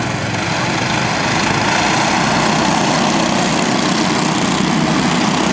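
Several small four-stroke racing kart engines running together as a pack of karts laps the track, a steady engine drone that grows louder about a second and a half in.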